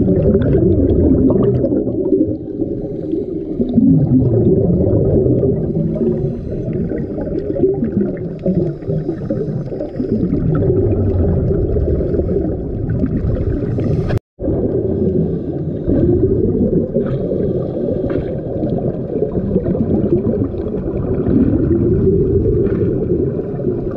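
Muffled underwater sound picked up through an action camera's waterproof housing: scuba divers' exhaled bubbles and moving water gurgling, with low sliding sweeps in pitch. It cuts out for a moment about halfway through.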